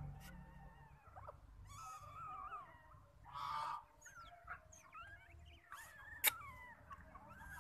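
Newborn otter pups squeaking while they nurse: many short, thin calls that waver up and down in pitch. There is a brief rustling burst about three and a half seconds in and a single sharp click near the end.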